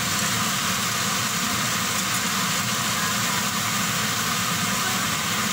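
Broccoli and egg stir-fry sizzling in a wok: a steady hiss over a low, even hum.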